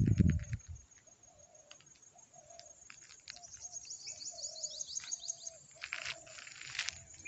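Dove cooing, short low coos repeated about twice a second, with a small bird's run of quick high chirps midway. A low thump at the start and a few scuffs near the end.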